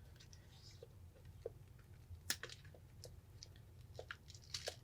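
Faint, scattered crackling and clicking of the shattered glass screen of a Samsung Galaxy Tab 4 as it is pried away from its adhesive. There is a sharper snap about two seconds in and a quick cluster of clicks near the end.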